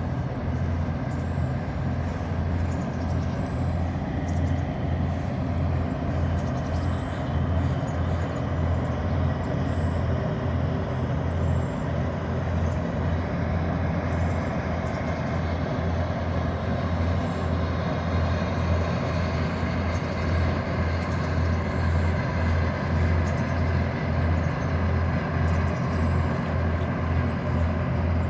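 Tugboat's diesel engine running steadily with a deep, even throb.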